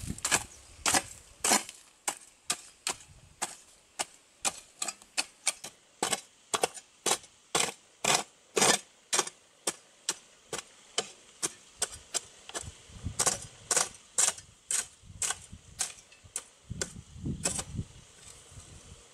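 Repeated sharp strikes of a hand tool on wood, about two a second, with a short pause here and there.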